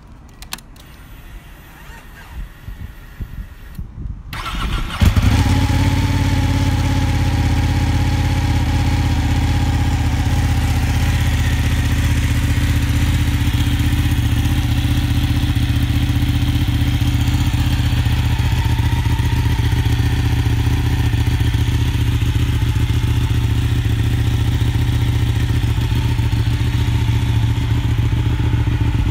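Ducati Panigale 899's Superquadro 90-degree V-twin being started: a few clicks, a brief crank about four seconds in, then the engine catches and settles into a steady idle.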